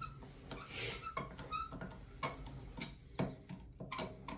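A screwdriver clicking and scraping against the service stop screws of a shower valve as the stops are turned, a string of sharp irregular clicks and knocks, with a few short high squeaks and a brief hiss.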